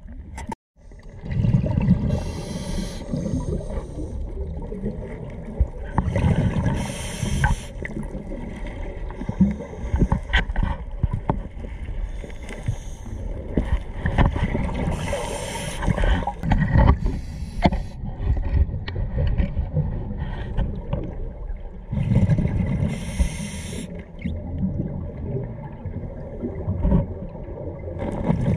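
A scuba diver breathing through a regulator, heard underwater: bursts of exhaust bubbles every few seconds over a low rumble of water movement, with a few small clicks.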